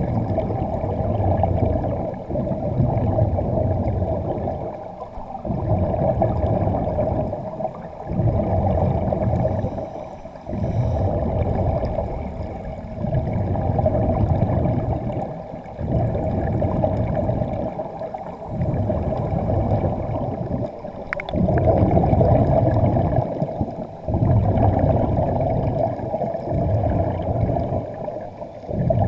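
Underwater bubbling and gurgling of divers' air, rising and falling in surges every two to three seconds with short lulls between.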